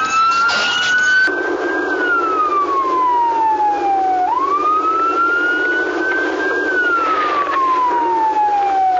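Police siren wailing, its pitch sweeping slowly up and down and repeating about every five seconds. In the first second or so, more than one siren sounds at once.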